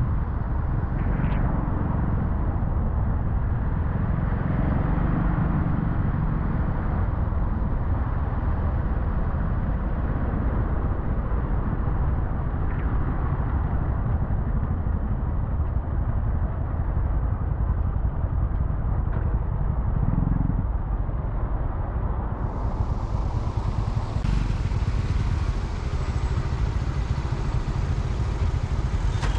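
Steady low rumble of road vehicle noise, unbroken throughout.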